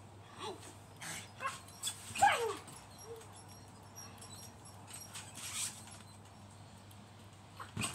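Dog whining: a few short cries that fall in pitch, the loudest about two seconds in. Short rustling noises are scattered in between.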